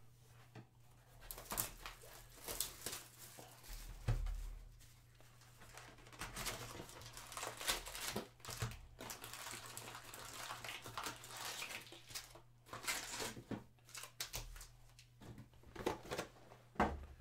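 Plastic wrapping on a box of basketball trading cards being torn and crinkled as the box is opened, with irregular rustling and a couple of light handling knocks.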